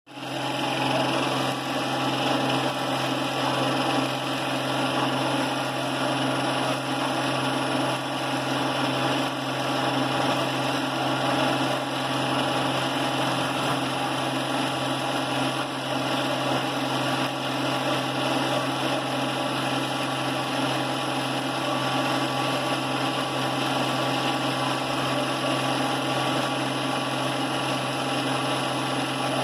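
35mm film projector running steadily, its motor and film mechanism making a constant mechanical noise.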